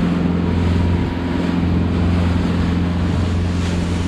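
Small motorboat's outboard engine running at a steady cruising speed, a constant drone, with wind buffeting the microphone and the rush of water from the wake.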